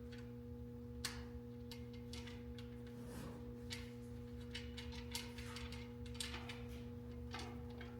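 Faint, irregular clicks and light rattles of metal stand parts and bolts being handled and fitted by hand, over a steady low hum.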